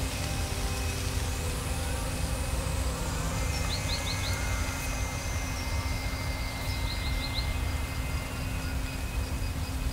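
Summer countryside ambience: a steady low wind rumble, with faint steady high tones and two short runs of four quick chirps about three seconds apart.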